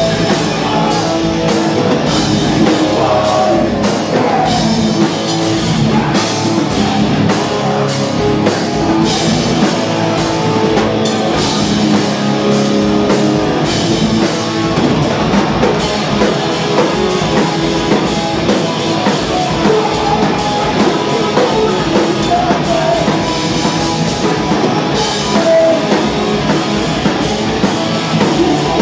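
Live hardcore band playing loud: distorted electric guitars and a drum kit, with a shouting vocalist.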